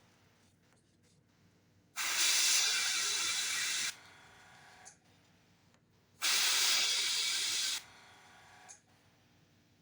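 Airbrush spraying paint in two short bursts of hiss, each about a second and a half to two seconds long, starting and stopping abruptly as the trigger is pressed and released.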